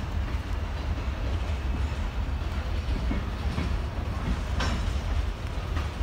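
Freight train rolling past on the yard tracks: a steady low rumble with a couple of sharp wheel clacks near the end.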